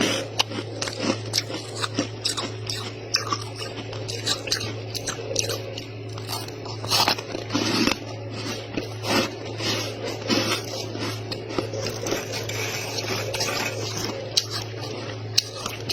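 Freezer frost being bitten and chewed close to the microphone: irregular crisp crunches, several a second, with a steady low hum underneath.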